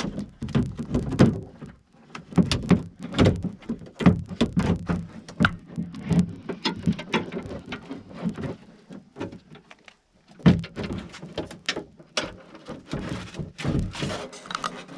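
Hands working inside a car door as a door lock actuator and its clips are fitted: irregular clicks, knocks and rattles of plastic and metal parts, with brief pauses about two seconds and ten seconds in.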